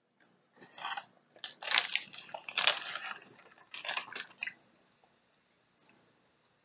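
Plastic snack wrapper crinkling and being crumpled in irregular bursts, the loudest stretch from about one and a half to three seconds in.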